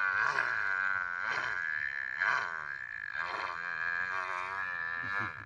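A boy imitating the call of a young male buffalo (paada) with his voice: one long, wavering call that breaks off shortly before the end.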